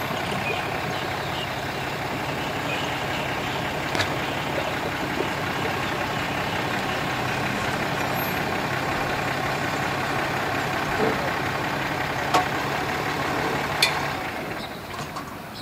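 Pickup truck engine running steadily as it tows a boat trailer up the ramp, easing off near the end. A few sharp knocks are heard over it.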